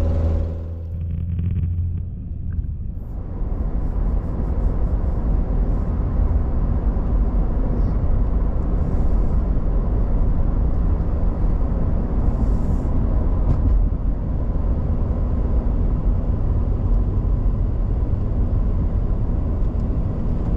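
Car driving, heard from inside the cabin: an engine hum with a clear pitch for the first couple of seconds, then a steady rush of tyre and wind noise at road speed.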